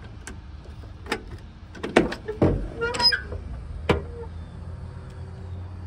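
The driver's door of a Chevrolet El Camino being opened: a series of clicks and knocks from the latch and hinge, loudest about two seconds in, over a steady low rumble.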